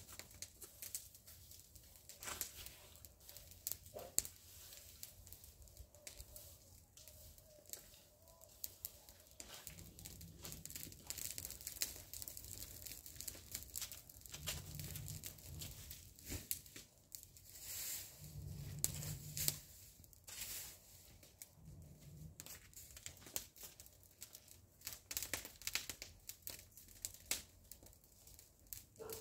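Dry leaves and brush crackling and rustling irregularly, with many sharp clicks. A low hum comes and goes a few times through the middle.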